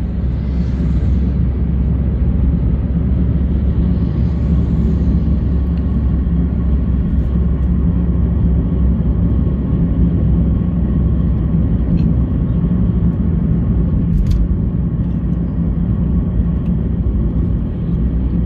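Steady road noise inside a moving car's cabin at highway speed: a constant low rumble of engine and tyres that does not change through the stretch.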